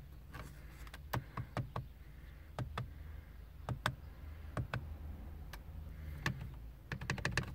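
Short, sharp clicks of a 2011–14 Ford Fiesta's radio buttons being pressed one after another to step through the radio's test mode, about a dozen presses with several in quick succession near the end, over a faint low hum.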